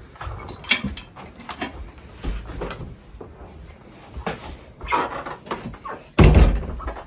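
A house door being opened and shut with footsteps and handling knocks as someone passes through, ending in a heavier thud about six seconds in.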